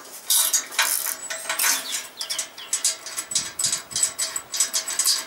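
Spanner working a nut on the threaded rod of a bearing-race press tool, with quick runs of sharp metallic clicks and clinks. The nut is being turned to draw a new tapered bearing race down into its seat in the steering head.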